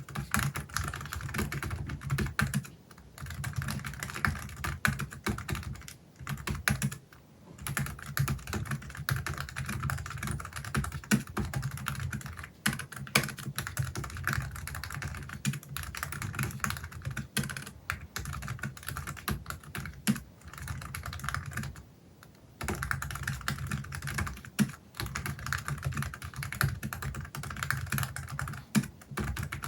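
Fast continuous typing on a Logitech MX Keys Mini low-profile scissor-switch keyboard covered with a silicone key skin, a dense patter of soft keystrokes. It stops for brief pauses about 3, 7 and 22 seconds in.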